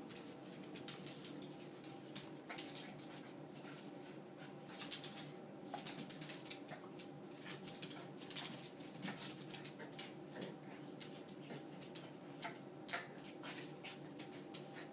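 Two small dogs play-fighting on a hardwood floor: quick, irregular clicking and scrabbling of claws on the boards, with a few short vocal noises from the dogs.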